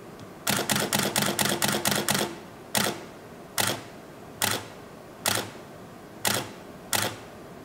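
Canon 6D DSLR shutter firing in continuous mode with a SanDisk card: a rapid burst of about a dozen clicks, then after about two seconds it drops to single shots a little under a second apart. The slowdown is the camera's buffer filling, so it can only shoot as fast as the card writes.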